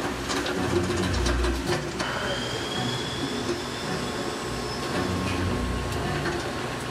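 Plastic injection-moulding machine and its suction-cup take-out robot running: a steady mechanical hiss with a cluster of sharp clicks in the first second and low heavy thuds about a second in and again near the end.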